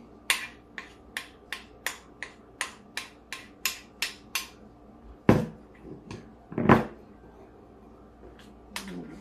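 A utensil clicking sharply against a glass bowl of frosting, about three times a second for roughly four seconds, then two heavier knocks about a second and a half apart.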